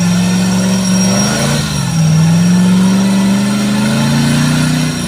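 4x4 off-road vehicle's engine working under throttle, its pitch climbing, dropping briefly about a second and a half in, then climbing steadily again before falling off at the very end.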